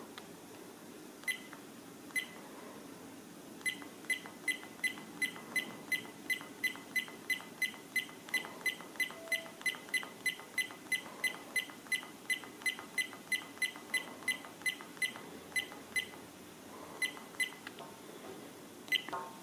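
SJCAM 5000x Elite action camera beeping at each button press as its setup menu is scrolled: two single beeps, then a fast run of about three beeps a second lasting some twelve seconds, then a few more single beeps near the end.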